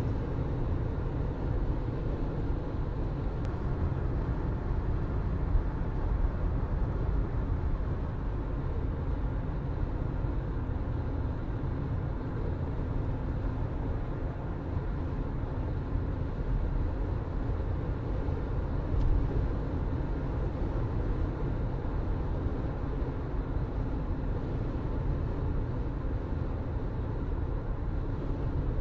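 Car driving along a road: steady rumble of tyre and road noise with a low engine hum, and two light bumps along the way.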